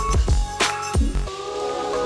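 Electronic background music with deep bass kicks and a steady beat, ending in a held synth chord.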